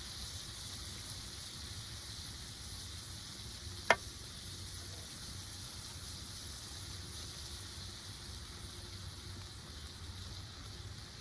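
Catfish fillets frying in butter in a skillet, a steady sizzle, with one sharp click about four seconds in.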